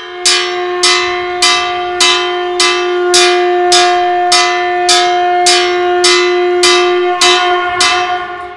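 Temple bell struck again and again, about fourteen evenly spaced strikes at nearly two a second, each ringing into the next, with a steady deeper tone held underneath; the ringing fades out at the end.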